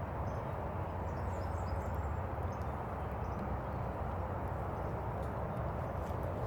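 Steady rushing of flowing river water, with a few faint, high bird chirps near the start.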